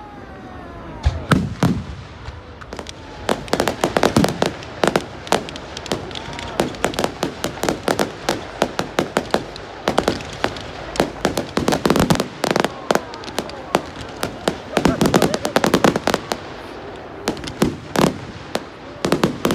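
Fireworks going off: a rapid, dense run of bangs and crackling, with a few falling whistles in the first couple of seconds.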